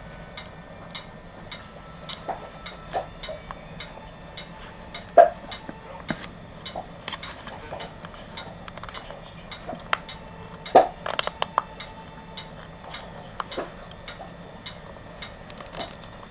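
Small irregular clicks and ticks of an electric blanket control unit's knurled setting dial being turned by hand and its switch working, with two louder sharp clicks about five seconds and eleven seconds in.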